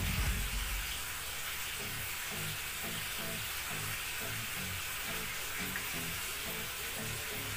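Soft background music: a quiet bass line repeating a few notes a second, under a steady hiss.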